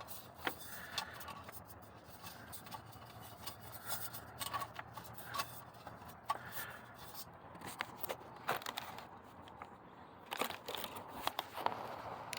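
Irregular light clicks, scrapes and rustles of small parts and hand tools being handled at close range.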